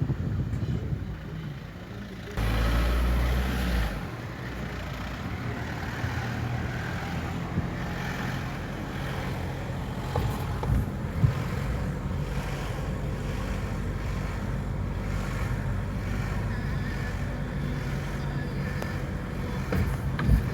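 Steady low rumble of a motor vehicle, with a loud burst of wind buffeting the microphone about two seconds in.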